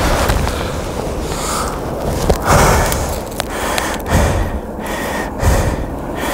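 A man breathing hard and gasping close to a body-worn microphone, in a series of loud breaths, after jumping a snowmobile off a cliff.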